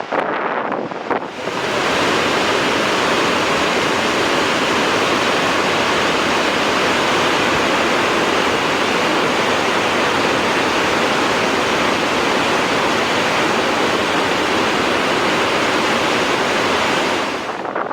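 Waterfall: a loud, steady, even rush of falling water. The first second or so is gustier, with wind on the microphone.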